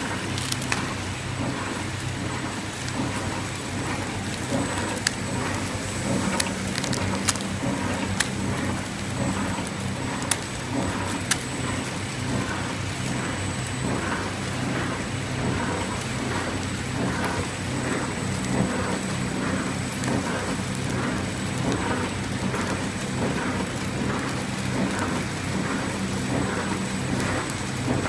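Horizontal flow-wrap packaging machine running as it wraps biscuits in clear film: a steady hum and hiss with scattered clicks, settling into an even repeating rhythm partway through.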